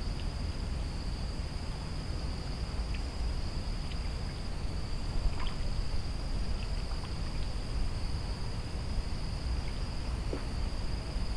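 Insects droning in one steady high-pitched note, over a low rumble and a few faint scattered ticks.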